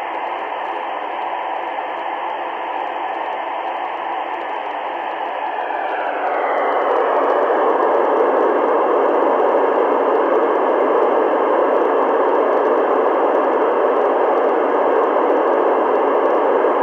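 Ham radio receiver hiss through its speaker: steady static with no voice on the channel. About six seconds in the hiss gets louder, with a brief falling tone.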